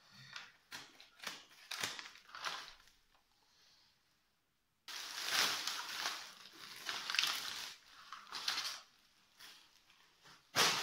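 Scissors snipping through plastic wrapping and tape, then plastic film and newspaper crinkling and rustling as the packaging is torn off. After a brief gap the crinkling is loud, and one sharp knock comes near the end.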